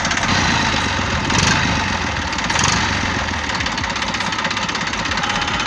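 Tractor engine running steadily through an exhaust fitted with a turbo-sound whistle in the silencer, which adds a hiss to the engine's chug. The sound swells briefly twice in the first few seconds.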